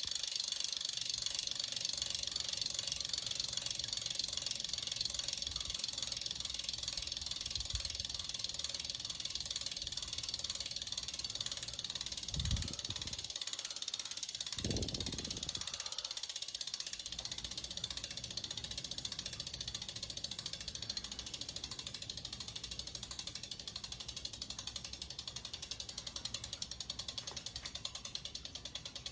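Mavic Crossride wheel hub's freehub pawls clicking as the wheel freewheels, a fast even ratcheting buzz that slows into separate ticks and fades near the end as the wheel winds down. Two short low thumps about twelve and fifteen seconds in.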